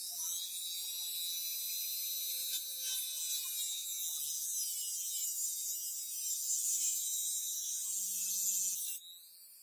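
Rotary tool with an abrasive cut-off disc running at high speed, cutting through a brass wire coil wound on a steel rod to part it into rings. A steady high whine that winds down near the end.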